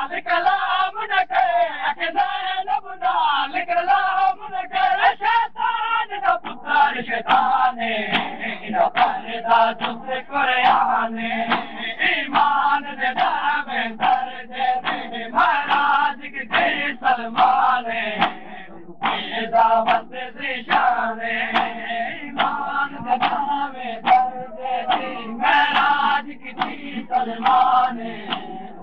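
Crowd of men chanting a Shia noha lament together, over a steady rhythm of hand slaps from matam, the beating of the chest in mourning.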